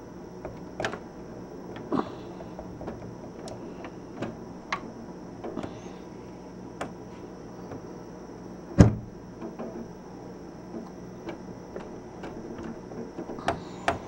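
A steady high insect drone, with irregular small clicks and taps and one louder thump a little after halfway.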